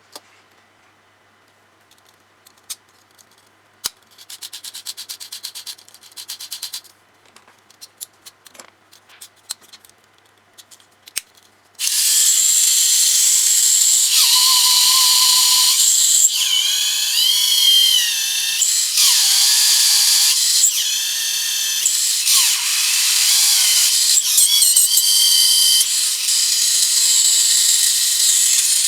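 Plastic parts clicking as they are handled, then a Tamiya Mini 4WD's small electric motor and gears switched on about 12 seconds in and running at a loud, high-pitched whine. The pitch dips and wavers several times as the spinning drivetrain is loaded.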